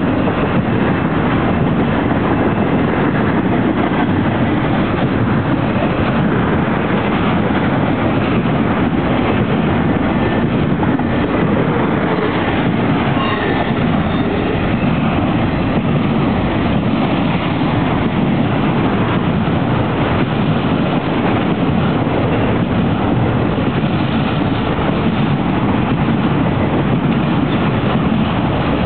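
Freight cars of a Norfolk Southern intermodal train, container-laden TTAX flatcars, rolling steadily past at close range: a loud, continuous rumble of steel wheels on the rails.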